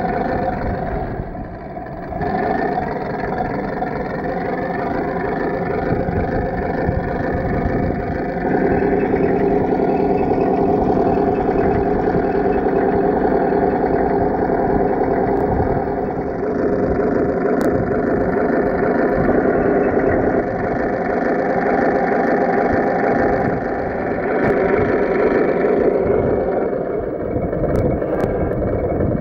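Tamiya M26 Pershing radio-controlled model tank driving: a steady mechanical whine and engine-like drone from the model, shifting in pitch several times as it moves.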